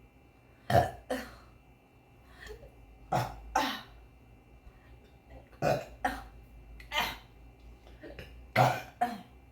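A young woman burping over and over: about nine short burps, mostly in pairs about half a second apart, several dropping in pitch at the end.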